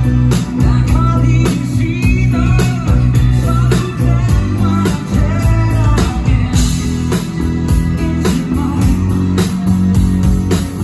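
A live rock band playing loud: electric guitar over drums and deep bass notes, with a man singing.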